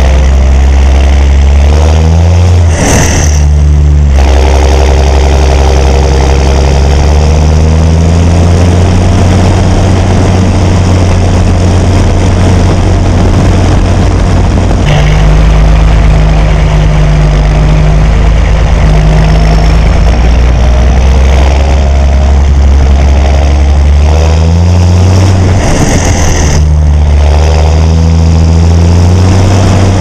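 John Deere 6920 tractor's six-cylinder diesel engine running under way. Its note rises and then drops about three seconds in and again near the end, each time with a short rush of noise.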